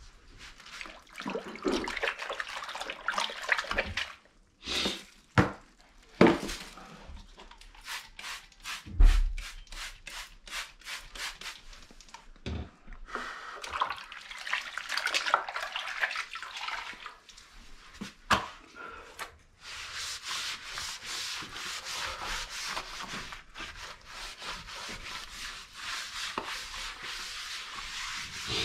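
Hand scrubbing and rubbing on a surface during cleaning, in stretches of scratchy strokes, with a run of knocks and one heavy thump in the middle; from about two-thirds of the way through the scrubbing becomes steady and rapid.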